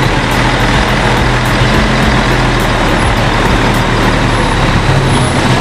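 Diesel engine of an intercity coach running at low revs close by as the bus manoeuvres in reverse, a steady low hum.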